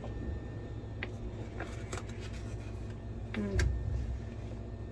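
A foil sheet-mask packet being handled and torn open: a few short crinkles and rustles over a steady low hum. A brief low murmur of voice about three and a half seconds in.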